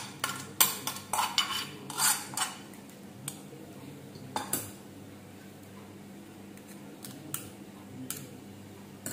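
Metal kitchen utensils clinking and knocking against a pan and bowl while spiced tempering is worked into boiled potato stuffing. A quick run of knocks comes in the first two and a half seconds, then a few scattered single clinks.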